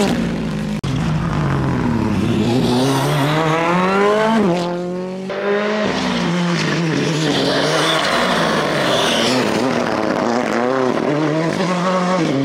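Ford Fiesta R5 rally car's 1.6-litre turbocharged four-cylinder engine at full throttle. The pitch climbs steadily through a gear, drops sharply at a shift about four and a half seconds in, then rises and falls repeatedly as the car is driven through the bends.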